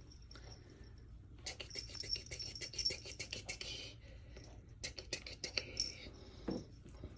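A cat's claws scratching and scrabbling in quick bursts, once for a couple of seconds and again briefly about five seconds in.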